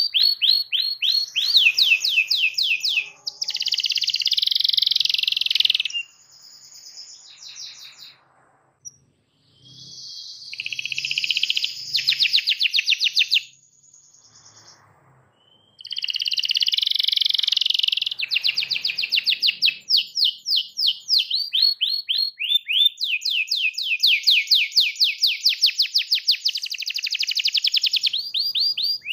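Domestic canary singing long rolling trills of rapid repeated notes, with two breaks about six and fourteen seconds in.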